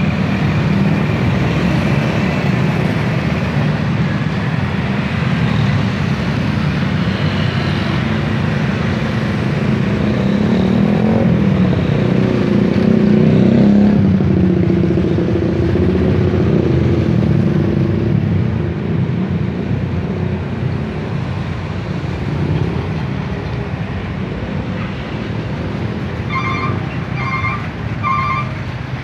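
A steady stream of motorcycles and cars running across a railway level crossing on a wet road: a mix of small engines and tyre noise, loudest about halfway through as motorcycles pass close. Near the end, a series of short beeps sound several times in quick succession.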